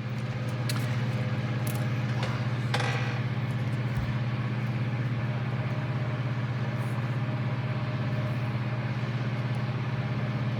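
Steady low background hum at an unchanging pitch, with a few faint clicks from small model parts being handled.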